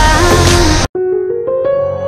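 Background music: a loud pop-rock song cuts off abruptly about a second in, and soft keyboard music starts, its notes stepping upward in pitch.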